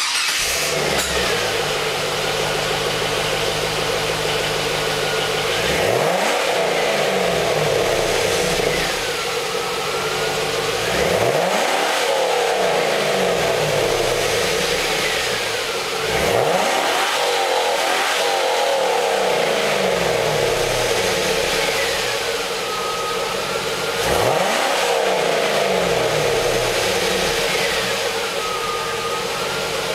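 Chevrolet Camaro Z28's LS1 V8 through its stock exhaust, firing up and idling. It is revved four times, each rev rising quickly and falling back to idle.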